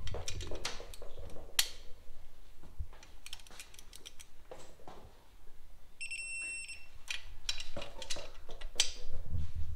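Torque wrench tightening the cylinder head nuts on a BMW R100 boxer engine: a scattering of sharp metallic clicks and clinks, with a short high electronic beep about six seconds in.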